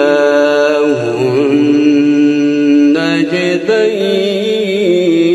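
A man reciting the Quran in a melodic chanted style, drawing out long held notes with rippling ornaments. About three seconds in there is a brief break, and then a higher ornamented note begins.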